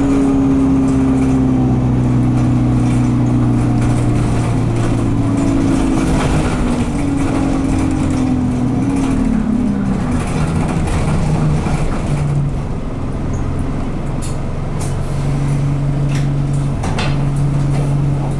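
Alexander Dennis Enviro200 bus engine heard from on board, its note falling steadily for about ten seconds as the bus slows, then running steady at a lower pitch. The gearbox is stuck in 2nd/3rd. A few short clicks and hisses come near the end.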